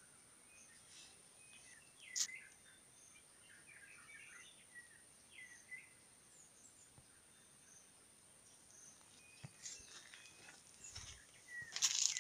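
Faint forest-edge ambience: a steady high insect drone with scattered short bird chirps. A sharp click about two seconds in and a burst of crackling near the end.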